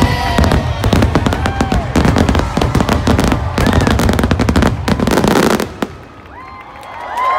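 Fireworks in a dense rapid barrage of bangs and crackles over show music. It stops suddenly just under six seconds in, with one last pop.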